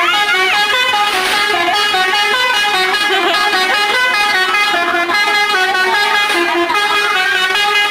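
A bus's basuri horn, a telolet-style musical multi-tone horn, playing a tune. It steps from note to note without pause and is loud throughout.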